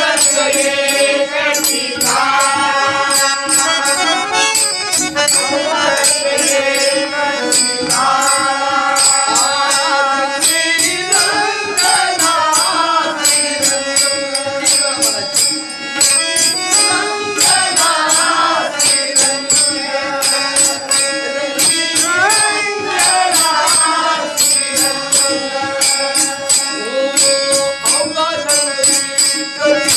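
Marathi devotional song: a male singer with held accompanying notes, a drum and jingling percussion keeping a steady beat.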